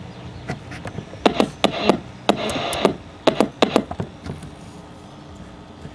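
Irregular clicks, taps and knocks of a plastic clock radio and tools being handled on a bench, with a short scraping rub a little over two seconds in; the radio's AM band is dead.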